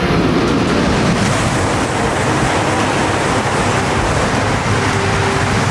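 E5 series Shinkansen passing at speed: a loud, steady rush of air and snow spray that comes in suddenly at the start as the train's nose arrives and holds as the cars sweep by.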